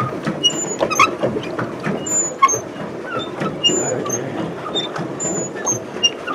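Rusty pedal drive of a paddle boat squeaking as the pedals turn, a short squeak about every second and a half, with light clicks, over a steady churning noise.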